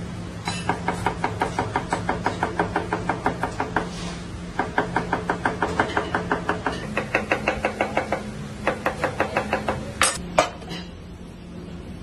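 Chef's knife rapidly chopping onion on a plastic cutting board, about six quick strokes a second in several runs with short pauses between them. Two sharper, louder knocks come about ten seconds in, and then the chopping stops.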